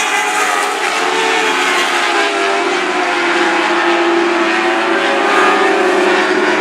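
Several Lightning Sprint race cars running at racing speed on a dirt oval, their engines holding high revs, with several engine notes overlapping and drifting slightly in pitch.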